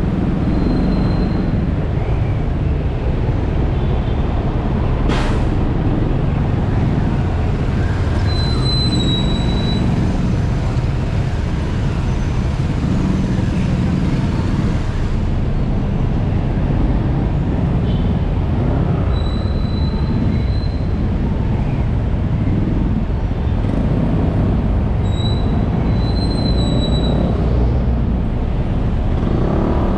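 Steady engine and road rumble of a motorcycle ridden slowly through dense city traffic, with the surrounding cars and motorcycles. A few brief high-pitched squeaks come through, and a sharp click about five seconds in.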